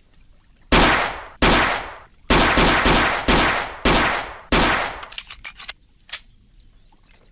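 Walther P38 9 mm pistol firing six single shots at an uneven pace, each with an echoing tail, followed by a few light clicks.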